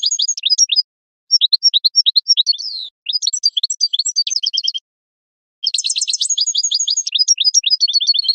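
European goldfinch singing: rapid twittering phrases of quick high notes, in four bursts with short pauses between them.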